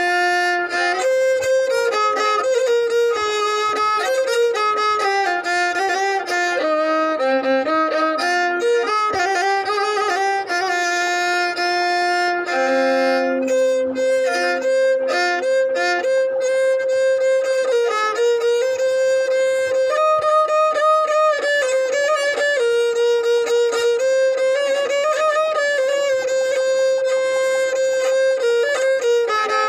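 Violin playing a continuous melody, with held notes, slides between notes and at times two notes sounding together.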